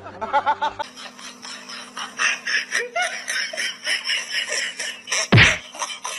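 A person laughing in short bursts, then rapid crackling and rustling of plastic bags and clutter on a shelf, with one loud thump near the end.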